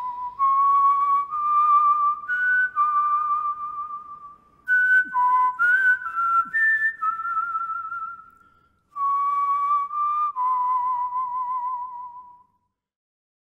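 A solo whistled melody, one line of notes with vibrato, played in three phrases with short breaks between them. It falls silent about a second before the end.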